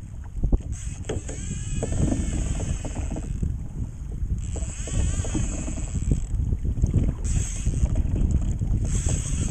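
Fishing reel being cranked fast against a hooked yellowfin tuna, its gears whirring in two spells that waver up and down in pitch, over the rumble of wind on the microphone.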